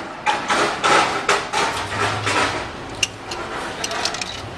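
Irregular clicks and knocks at an ice cream vending machine's payment slot, then a low steady motor hum from about two seconds in with a few sharp clicks, as the machine's money acceptor takes in the payment.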